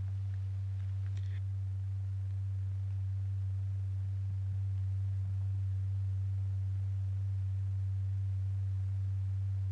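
Steady low pure tone of about 100 Hz: the audio tone exciting a stretched diaphragm strewn with Lycopodium powder, at a frequency that sets the powder piles rotating anti-clockwise.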